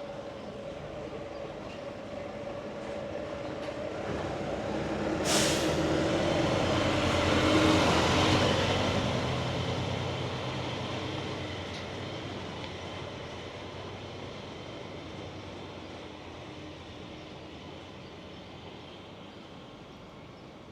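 A heavy motor vehicle passes by, its engine growing louder over about eight seconds and then slowly fading away, with a short sharp hiss about five seconds in.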